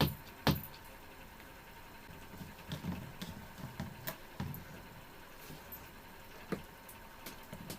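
Soft, irregular chewing and mouth noises of a person eating rice with fish curry, with a few small clicks and smacks.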